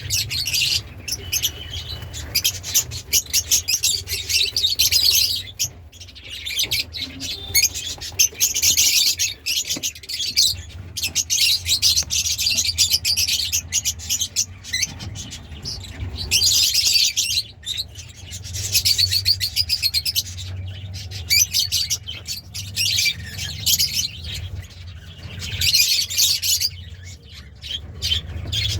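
Lovebirds chattering in rapid, high-pitched chirping, in spells of a few seconds that come and go throughout, over a steady low hum.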